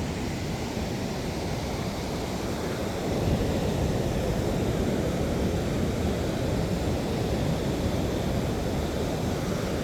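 Ocean surf washing onto the beach, mixed with wind on the microphone; it swells a little about three seconds in.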